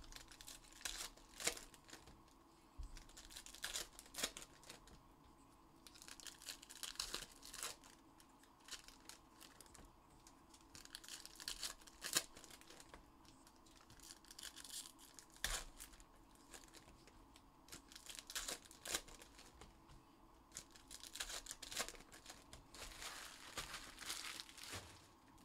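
Trading-card pack wrappers being torn open and crinkled: crinkling stretches a second or two long with scattered sharp clicks and snaps in between.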